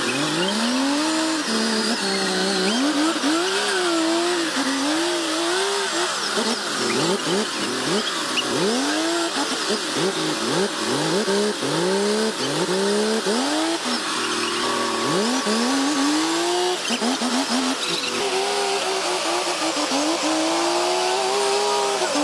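An engine revving over and over in quick swoops, its pitch rising and falling many times, then holding a steadier pitch near the end.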